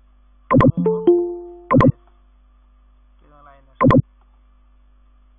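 Video-call audio: several short, loud bursts of garbled sound, with a two-note electronic chime that fades away about a second in.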